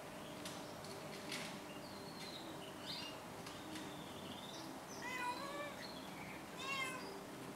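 Black-and-white domestic cat meowing twice in the last few seconds, a longer call followed by a shorter one.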